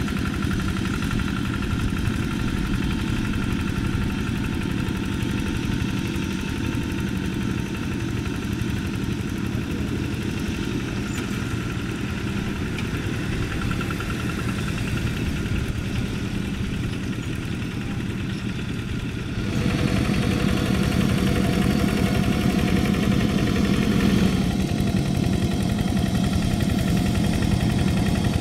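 Single-cylinder Kubota diesel engines of two-wheel hand tractors running steadily under load while tilling wet paddy mud. About two-thirds of the way through, the sound suddenly turns louder and changes pitch as a different tractor is heard.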